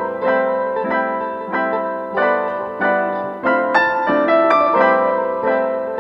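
Background piano music, a slow line of notes each struck and left to fade.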